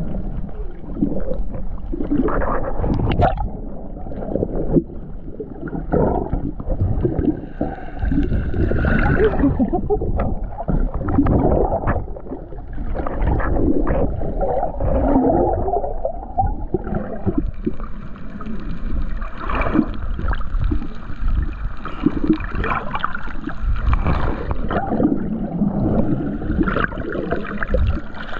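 Underwater sound of water churning and gurgling around the camera, with pitched, wavering calls of humpback whales rising and falling through the middle. A steady high tone joins about halfway through.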